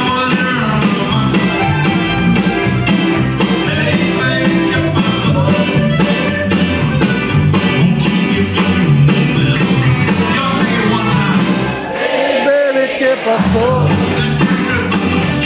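Live Tex-Mex band playing an instrumental stretch with a steady rock-and-roll beat: trumpet over accordion, electric guitar, keyboard, bass and drums. The bass and drums drop out briefly about twelve seconds in, then come back.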